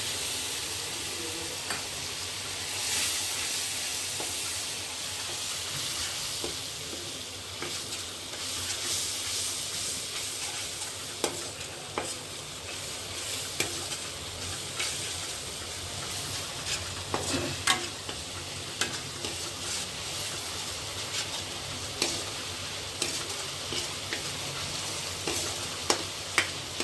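Masala of ground onion, garlic and green chilli with a turmeric-chilli-coriander paste sizzling in mustard oil as it is stirred, a spoon scraping and clicking against the pan now and then. The masala is being fried until the oil separates from it.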